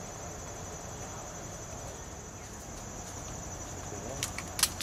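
A steady high-pitched chorus of insects such as crickets over faint outdoor background murmur, with a few sharp clicks near the end, the loudest about four and a half seconds in.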